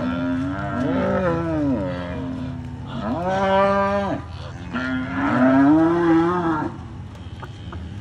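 Cows mooing, several long calls one after another and overlapping at first: the herd is agitated by a cattle egret among them, the mothers protective of their newborn calves.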